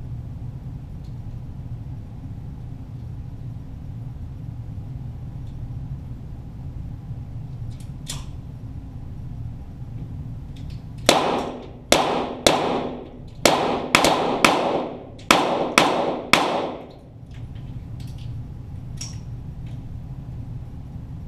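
A string of about nine .22 target-pistol shots fired in quick succession over some five seconds, heard from down by the targets, each with a short echo. A steady low hum runs underneath.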